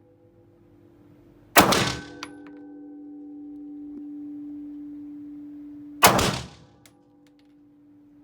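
A CZ 75 B 9 mm pistol firing two single shots about four and a half seconds apart, each a sharp crack with a short ringing tail. A light metallic clink follows just after the first shot.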